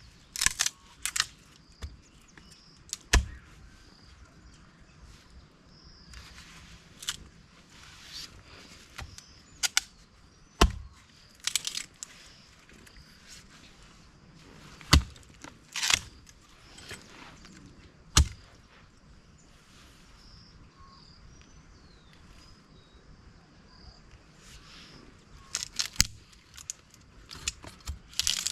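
Irregular sharp knocks and cracks, about a dozen spread unevenly and clustering near the end, over a faint steady high chirping in the background.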